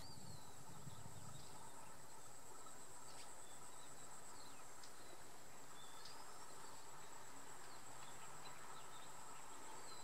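Dusk jungle ambience: a steady high-pitched drone of crickets and other insects, with a few faint short bird chirps.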